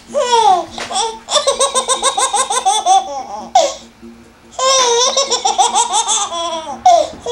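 Six-month-old baby laughing hard: a falling squeal at the start, then two long runs of rapid belly laughs, about six a second, with a short breath between them.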